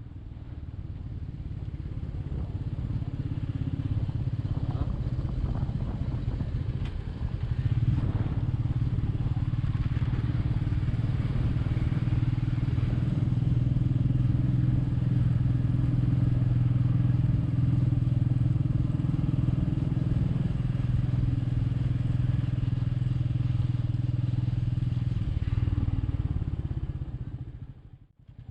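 Royal Enfield Meteor 350's single-cylinder engine running steadily while the bike is ridden, with road and wind noise. It swells over the first few seconds and drops away sharply just before the end.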